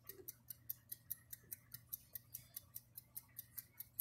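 Faint, steady rapid ticking, about five sharp ticks a second, over a low hum.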